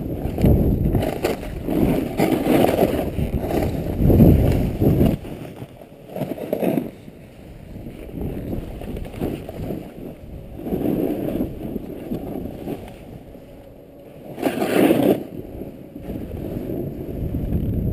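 A snowboard sliding and carving through powder snow, a rushing hiss and scrape that swells and fades with each turn, with wind buffeting the microphone. A sharper surge comes near the end.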